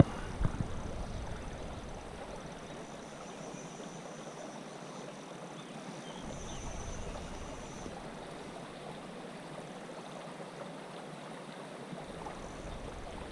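Stream water running steadily, with a single sharp knock about half a second in.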